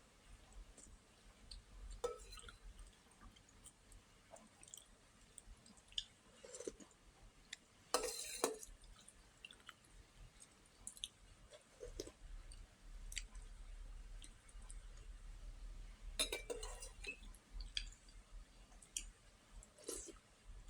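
Eating sounds: chewing with wet mouth smacks and clicks at irregular intervals, a few of them louder.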